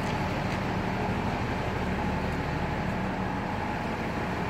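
A steady low mechanical hum with a faint drone beneath it.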